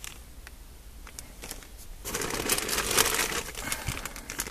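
Clear plastic parts bags crinkling and rustling as they are handled, faint at first and louder from about halfway through.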